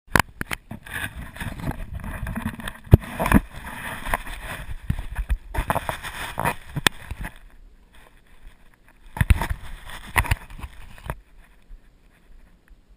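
Muffled, irregular knocks, bumps and rubbing from a strapped-on action camera in its housing being handled and jostled on a small RC helicopter. They die away about eleven seconds in.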